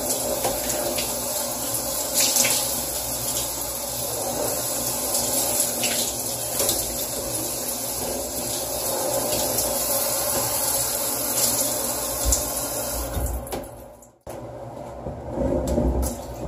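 Water spraying from a handheld shower head onto a small piece of furniture in a shower stall, a steady splashing hiss. The spray shuts off about three-quarters of the way in, followed by a few low thumps as the wet piece is handled.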